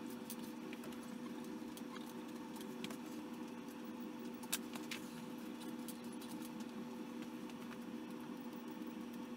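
Faint metallic clicks and clinks of hand tools on the Ducati 1098S's engine as it is turned over by hand, with one sharper click about halfway through, over a steady low hum.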